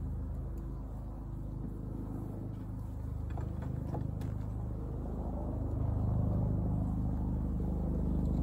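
A steady low engine hum runs throughout and grows a little louder about six seconds in, with a few light clicks about three to four seconds in as wooden hive frames are handled.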